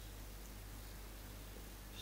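Quiet room tone with a faint steady low hum; no distinct sound stands out.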